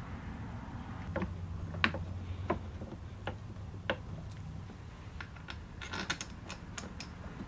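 Irregular sharp clicks and light taps of small parts being handled and fitted on a motorcycle handlebar during a heated-grip test fit, more frequent in the second half, over a low steady hum.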